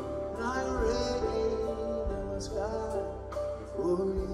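Live band playing an instrumental passage, heard through an audience recording, with a lead line that slides between notes a few times.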